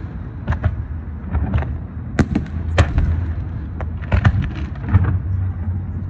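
Fireworks going off: about a dozen sharp bangs at irregular intervals, some in quick pairs, over a low steady rumble.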